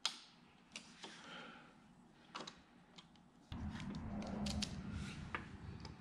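Scattered light clicks and ticks of hand work on a motorcycle's rear turn-signal assembly. From about three and a half seconds in, a low rumbling handling noise joins them.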